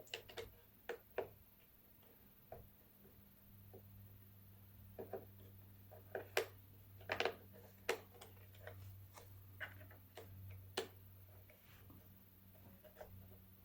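Scattered light clicks and taps of an Allen key and small hex screws being worked out of a plastic radio-controller case, over a steady low hum.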